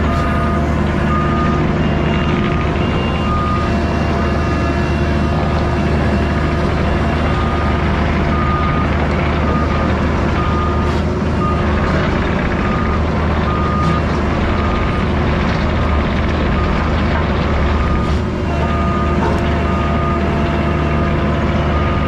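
Diesel engine of a compact earthmoving machine running steadily under work. A reversing alarm beeps about once or twice a second, starting and stopping in several spells as the machine backs up.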